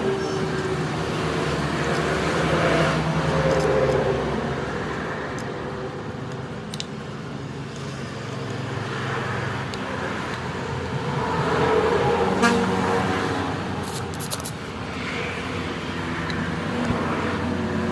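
Road traffic: motor vehicle engines running and passing, rising and falling over several seconds, with a few sharp clicks late on.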